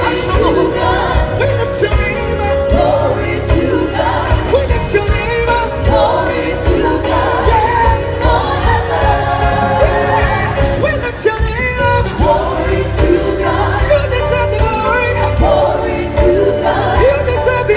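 Live gospel music: a choir and singers over a band with bass and drums.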